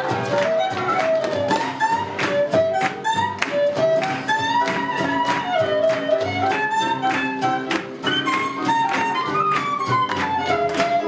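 Recorded swing jazz music: a melody line weaving up and down over a steady, brisk beat.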